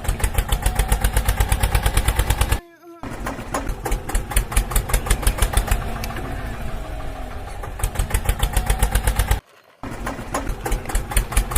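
Small tractor engine chugging steadily at about eight beats a second while pulling a stuck tractor out of the mud, cut off twice by short silences.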